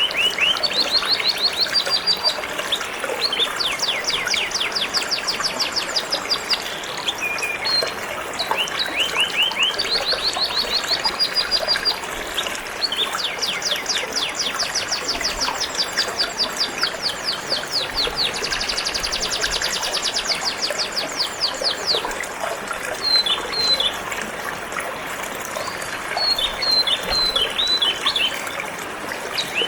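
Domestic canary singing phrase after phrase of rapid trills, each a run of quickly repeated notes, with a higher, faster trill about two-thirds of the way through. Under it runs a steady trickle of flowing water.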